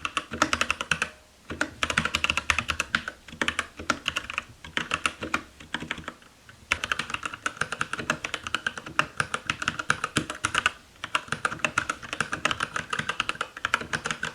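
Keychron K8 mechanical keyboard with Gateron Brown switches being typed on quickly: a dense run of key clacks, broken by short pauses about every four to five seconds.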